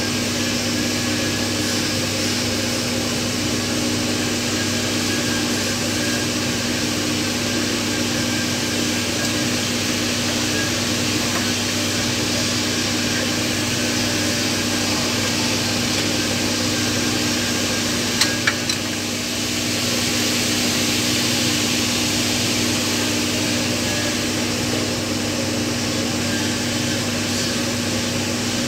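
Steady machinery hum with hiss, holding a few fixed tones throughout. A few sharp clicks come about eighteen seconds in.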